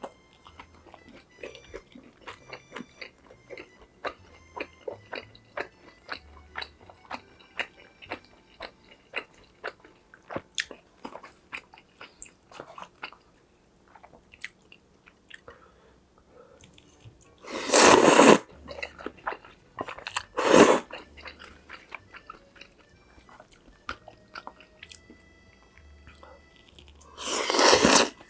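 Close-miked eating: steady chewing with many small wet clicks. Then, about eighteen seconds in, about twenty seconds in and near the end, three loud, noisy mouthfuls that each last under a second.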